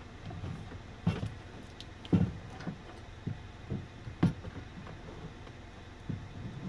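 A few sharp knocks and clicks, spaced about a second apart, from hands pushing a CB radio and its wiring into place in a truck dash.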